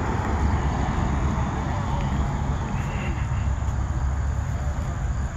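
Outdoor ambience: a steady low rumble with faint voices in the background.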